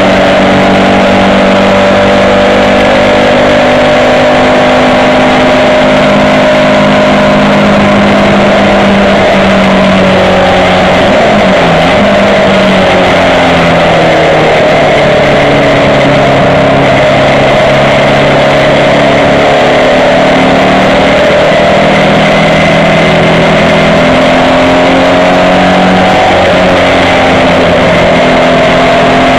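Racing car engine heard from inside the cabin, loud and unbroken under hard driving on a circuit. Its pitch falls sharply about eleven seconds in, then climbs again, and it falls and rises once more with gear changes and corners.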